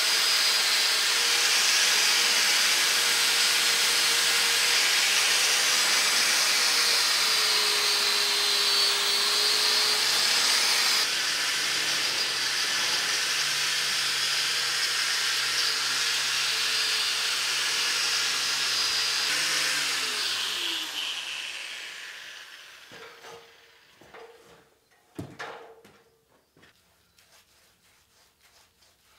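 Angle grinder grinding rust off a steel I-beam, a steady loud whine whose pitch dips for a few seconds as it bites. About 20 seconds in it is switched off and spins down with a falling note, followed by a few short knocks and scrapes on the metal.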